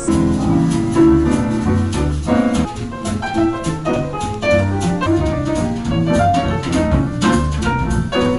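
Instrumental background music with a steady beat: pitched notes over a bass line and drums.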